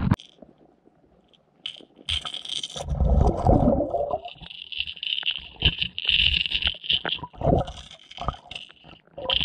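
Pond water heard through a submerged action camera: low muffled sloshing and knocks, then a pulsing high rattle with scattered clicks from about halfway. The rattle fits a rattling lipless crankbait being worked through the water.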